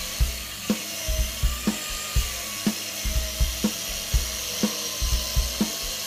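Angle grinder driving an Arbortech Mini Turbo plane blade, cutting into wood around a template, its tone wavering a little under load. Background music with a steady beat of about two thumps a second plays over it and holds the loudest peaks.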